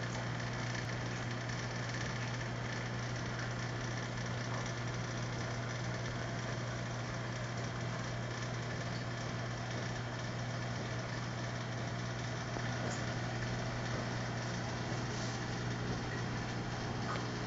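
Aquarium pump humming steadily: a low, even drone under a constant hiss.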